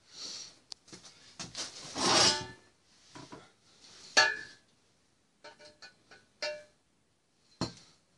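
Steel exhaust pipe sections of a VAZ-2107 being shifted and lifted from the floor: scraping and a series of metallic clanks, some ringing briefly. The loudest clank comes about four seconds in, with a sharp knock near the end.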